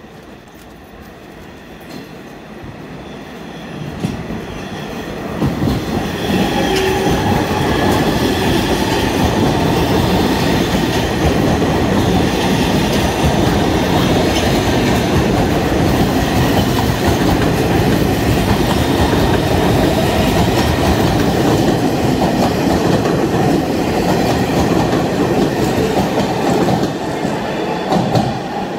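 New York City subway train running past on the rails: it builds up over the first few seconds, then a loud, steady rumble of wheels on track with a faint steady whine holds for over twenty seconds, easing off near the end.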